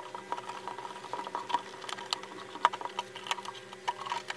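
Irregular light clicks and taps of a 3D-printed PLA microphone shock mount being handled and fitted with hair bands, over a faint steady hum.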